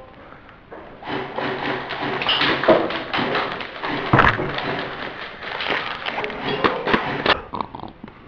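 A run of irregular dull thumps, taps and rustles, handling noise from a player moving with an airsoft rifle and gear, with a few louder knocks in the middle.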